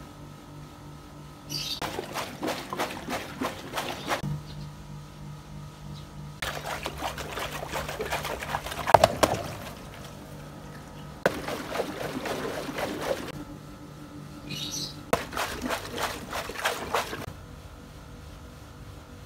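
Water from a garden hose spraying and splashing around the hose's connection on a large rubber water-balloon toy as it fills. The splashing comes in four stretches of two to four seconds each, over a faint, steady, low hum.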